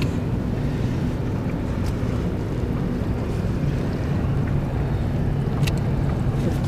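A boat's engine running steadily at a low hum, with wind on the microphone and two faint clicks.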